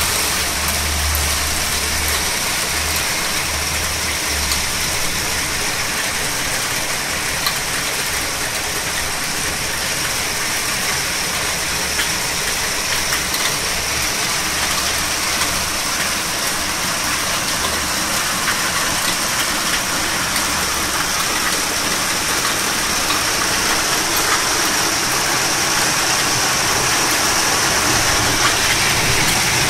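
Heavy downpour: a steady, even hiss of rain falling on roofs, trees and a flooded street, with scattered sharper drop impacts. A low rumble sits under it for the first several seconds, and the rain grows a little louder near the end.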